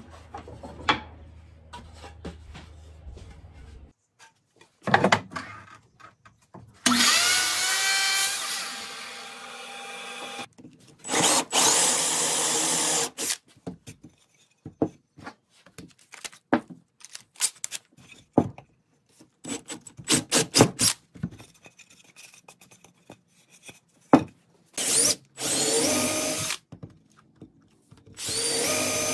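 Cordless drill boring into a wooden board in several separate runs, each spinning up with a rising whine and then running steadily. Between the runs come short knocks and clicks of the board and tools being handled.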